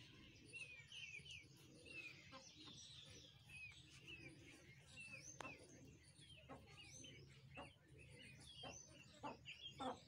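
Faint chirping of small birds: many short, high chirps in quick succession, with a few soft knocks in the second half.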